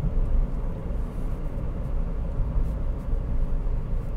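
Toyota Yaris 1.33 Dual VVT-i four-cylinder petrol engine and road noise heard from inside the cabin while driving at steady town speed: a steady low rumble.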